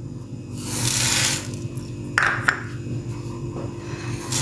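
Dry red lentils poured from a small bowl into a large bowl of dry pulses and rice: a rushing patter of grains lasting about a second, then two light knocks of the bowls. Near the end a second pour of dry grains (broken wheat) begins.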